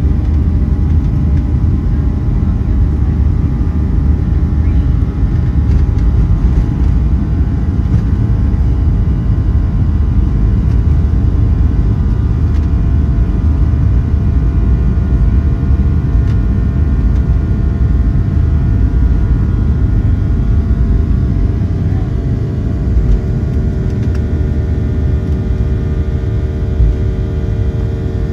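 Cabin noise of a Boeing 737-700 under power: its CFM56-7B jet engines and the airflow give a loud, steady low rumble with faint steady whining tones above it.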